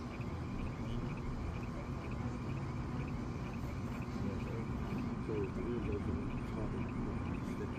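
Crickets chirping steadily in a fast repeating pattern, over a continuous low rumble.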